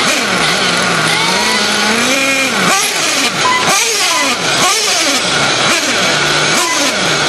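Traxxas Slash RC short-course trucks racing, their motors whining up and down in pitch over and over, about once a second, as they accelerate and brake around the track.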